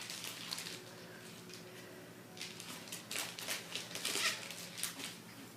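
Gift wrapping paper rustling and tearing: a run of short crinkles and rips near the start, a quieter stretch, then more from about two and a half seconds in.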